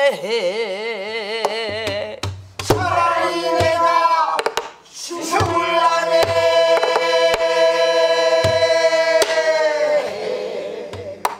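Pansori singing: a slow lament phrase with wide, wavering vibrato and then a long held note. It is accompanied by stick and hand strokes on a buk barrel drum.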